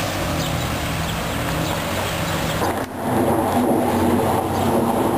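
Motor vehicle engine noise on a city street: a low engine hum, then, after a cut about three seconds in, a louder steady engine drone.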